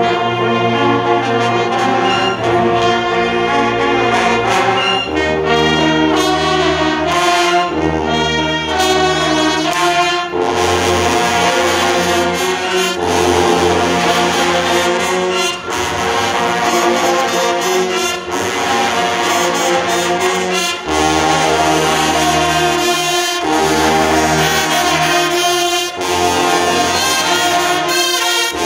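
High school marching band playing a brass-heavy arrangement: trumpets and trombones over clarinets, flutes and saxophones, with deep sousaphone notes coming in about five seconds in and sharp percussion hits.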